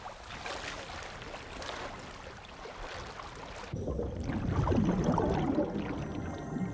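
Sea water churning and fizzing around a diver who has just dropped in from an inflatable boat. About three and a half seconds in it gives way suddenly to a louder, low, muffled rumble, as heard underwater.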